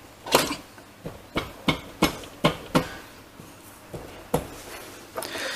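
Irregular sharp metallic clicks and knocks, about eight in five seconds, as a flat spacer bush is worked onto a motorcycle's rear wheel axle beside the drum-brake panel.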